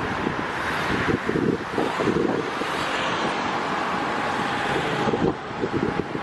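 Road traffic passing, with wind buffeting the microphone.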